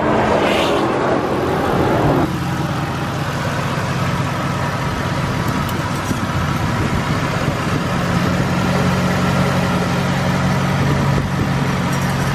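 A car driving past for about the first two seconds, then a car engine idling steadily with the hood open.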